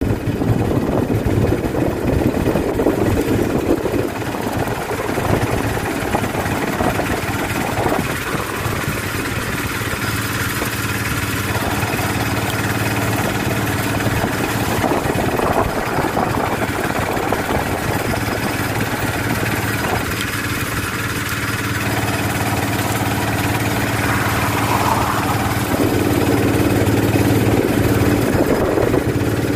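Auto-rickshaw engine running steadily at cruising speed, a continuous low drone heard from inside the open cab.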